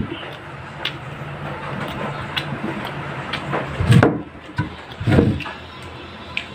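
Mealtime handling noises at a table: scattered small clicks and two dull knocks, about four and five seconds in, over a low steady hum that fades a little past halfway.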